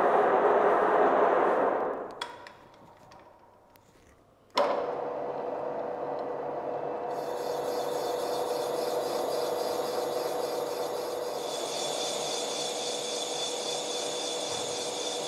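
Cylinder-boring machine cutting inside a cylinder of a Kia/Hyundai G4KE engine block, turning out the old liner: a steady hum with a rasping cutting noise, starting suddenly about four and a half seconds in, with a higher hiss added and later a high whine. Before it comes a loud, even noise for about two seconds, then a short quiet gap.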